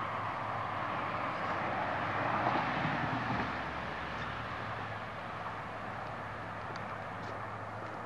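Steady rush of road traffic crossing a long highway bridge, swelling as a vehicle passes about two to three seconds in, then settling to an even hiss.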